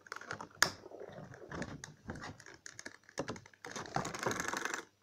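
Clear plastic blister packaging crackling and clicking as it is pulled and bent away from its cardboard backing, with a sharp snap about half a second in and a longer run of crinkling near the end.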